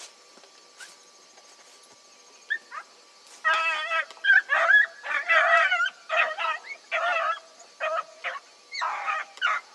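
Beagles baying as they run a rabbit's scent trail. After a quiet start, a string of short bays begins about two and a half seconds in and follows one after another.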